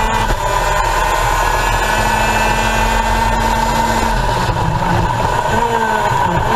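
Two-stroke racing kart engine running hard at full throttle, holding a steady high pitch.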